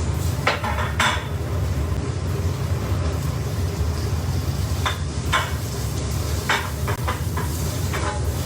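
Metal tongs clinking and scraping against a frying pan of roasting guanciale, in short clatters about half a second in, near five seconds and several times near the end, over a steady low rumble.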